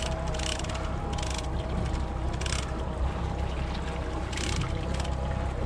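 A boat engine running steadily at low speed, with a few short hissing splashes of water about a second apart.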